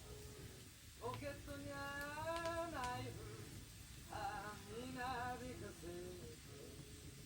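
A singing voice, without words, in two slow phrases of long wavering notes, over quiet background music.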